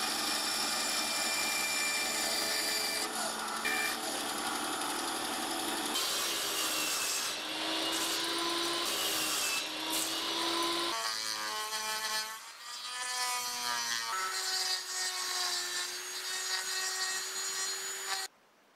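Woodworking power tools cutting a hardwood handle block one after another: a bandsaw, then a table saw, then a Dremel rotary tool routing a slot, each running with a steady whine. Around twelve seconds in, the motor pitch glides down and back up, and the sound cuts off sharply near the end.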